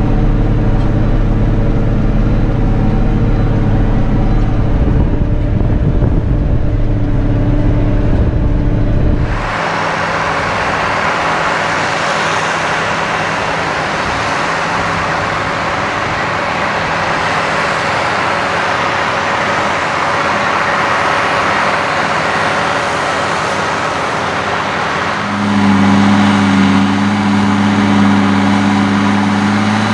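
SAME Titan 190 tractor's diesel engine pulling a plough under load. It is first heard from inside the cab as a low, steady drone. About ten seconds in it turns to a brighter, noisier exhaust sound heard from outside, and near the end a deeper steady note returns.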